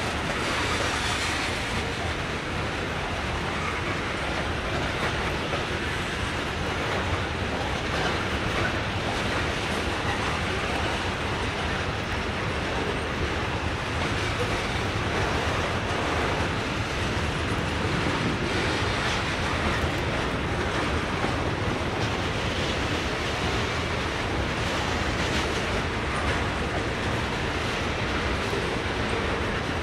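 Freight cars of a passing Norfolk Southern train rolling by on the rails: a steady rumble of steel wheels on track.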